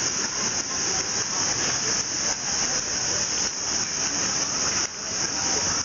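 A chorus of cicadas in a tree: a loud, steady high-pitched hiss that pulses slightly, over a low murmur of street and crowd noise.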